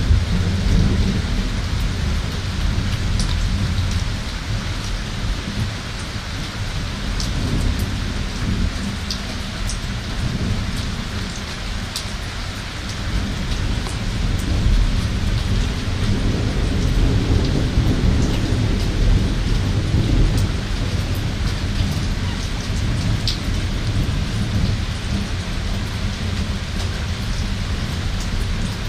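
Thunderstorm: heavy rain pouring steadily, with single drops ticking sharply close by, over a deep rumble of thunder that eases a little in the first half and swells again after the middle.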